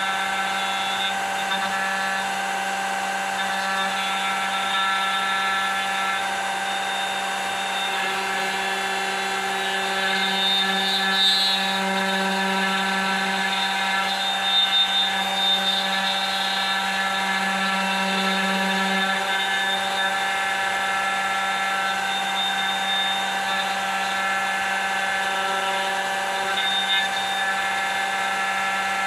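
Electric router on a manual copying machine running steadily with a small engraving bit cutting a groove into a wooden board. Its whine holds a fixed pitch and swells under heavier load for several seconds in the middle, with a few brief louder moments as the bit bites.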